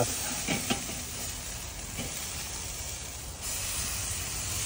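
Burger patties sizzling on the grate of a Weber Master-Touch charcoal kettle grill: a steady hiss, with a few light clicks in the first two seconds. The hiss grows a little louder about three and a half seconds in.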